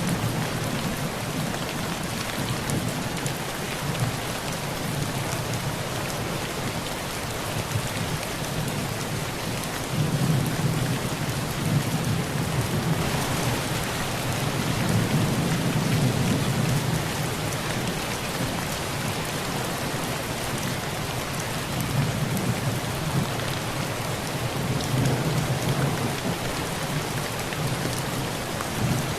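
Heavy rain falling steadily on a tin roof, with low rolls of thunder swelling about a third of the way in and again later on.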